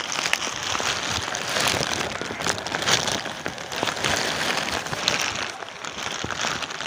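Rain falling, a steady hiss dotted with many small drop ticks.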